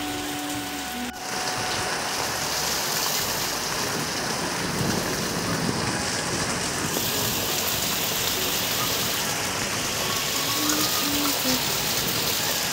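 Steady rain falling on roofs and wet concrete, with a stream of runoff pouring off a roof edge and splashing onto the paving. The rain gets a little louder about a second in.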